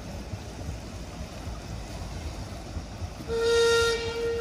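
Paddle steamer Rothbury's steam whistle sounding once, a single pitched blast of about a second that is loudest at its start, over a low steady rumble.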